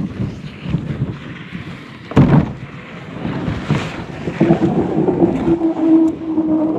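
Canoe hull scraping as it is slid along wooden log rails, with a sharp knock about two seconds in. Over the last two seconds the hull rubbing on the wood gives a steady groaning squeal.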